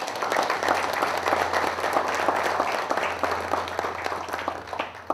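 Audience applauding: many hands clapping at once, steady throughout, breaking off near the end.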